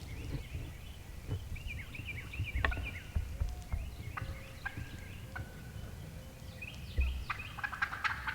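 Wild Osceola turkey gobblers gobbling repeatedly at close range, with bursts about two seconds in and again near the end.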